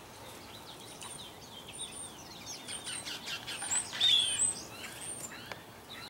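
Several birds chirping and calling: many short, high chirps and quick sweeping notes, busier from about a second in, with the loudest calls about four seconds in, over faint outdoor background hiss.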